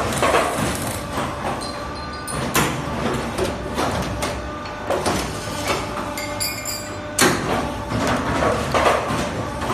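Automatic double J hook bending and welding machine running: a steady machine hum with loud metallic knocks every two seconds or so as it works steel wire.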